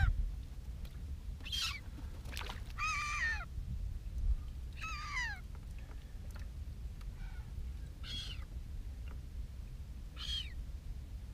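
A bird calling repeatedly: about six short cries, each falling in pitch, one every second or two, over a steady low rumble.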